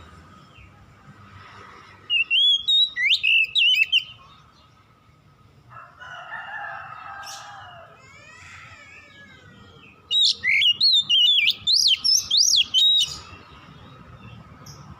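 Oriental magpie-robin singing: two bouts of loud, rapid whistled notes sliding up and down, each lasting a couple of seconds, with softer calls in the pause between them.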